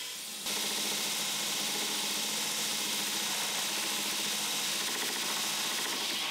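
Belt grinder grinding a leaf-spring steel knife blank, with the footage sped up ten times: a steady, hissy grinding that gets louder about half a second in.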